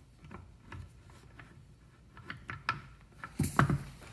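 Light clicks and taps of screws and an Allen key being handled as the axle screws are started into an electric scooter's rear fork, with a louder knock about three and a half seconds in.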